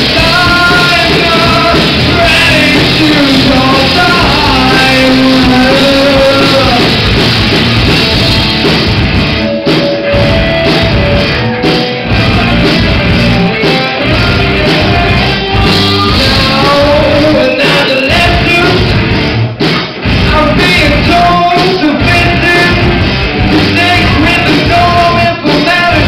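Live rock band playing loudly in a hall: electric guitars, bass and a drum kit with a singer's voice over them, heard from within the audience.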